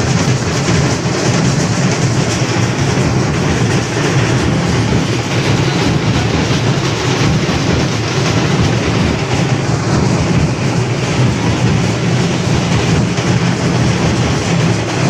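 Loud, steady din of a very large outdoor crowd, with a continuous low rumble underneath.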